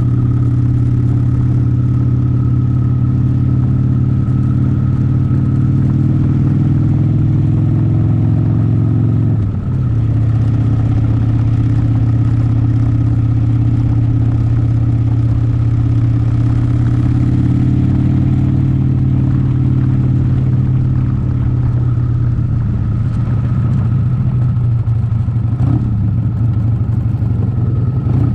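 Vehicle engine running steadily under way, with a low, even drone; its pitch dips briefly about nine seconds in, then settles back.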